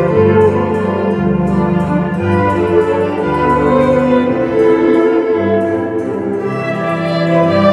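String ensemble playing a waltz, with bowed strings holding sustained notes over a bass line that changes note about once a second.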